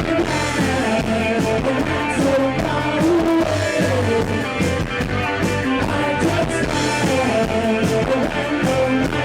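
Live rock band playing a song, with a singer's voice over electric guitar.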